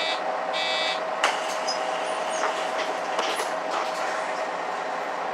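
Inside a Mercedes-Benz O530 Citaro city bus: a steady running hum with a constant tone, two short electronic beeps in the first second, and a sharp knock about a second and a quarter in.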